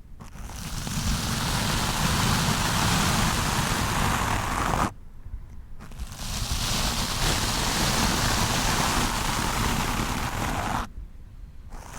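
Stiff-bristled wooden brush scrubbing roughly across a microphone: a loud, dense scratching in two spells of about five seconds each, stopping for about a second a little under five seconds in and again near the end.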